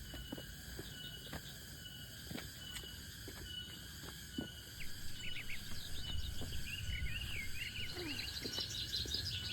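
Insects calling steadily with birds chirping, the chirps getting busier and louder from about halfway through.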